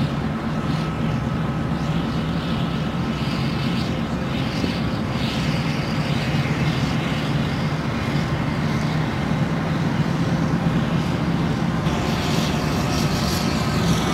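Diesel engines of AAV7 amphibious assault vehicles running steadily as the vehicles push through the surf, mixed with the rush of breaking waves and spray. The hiss of water grows in the last couple of seconds as a vehicle comes out onto the beach.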